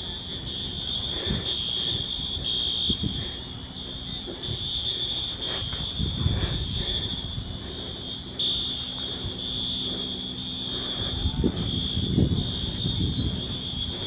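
Wheelock fire alarm horns at a school sounding in the distance, a steady high-pitched tone broken by short gaps, as several devices run on temporal (Code 3) and continuous patterns during a fire drill.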